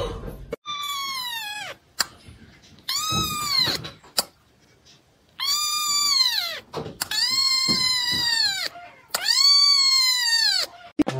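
Young kitten meowing five times, each a high, drawn-out cry that rises a little and falls away at its end.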